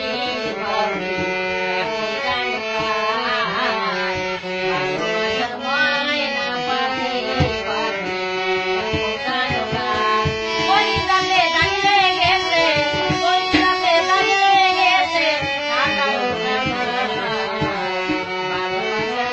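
Violin played solo, a melody line with slides and wavering held notes, over low drum strokes.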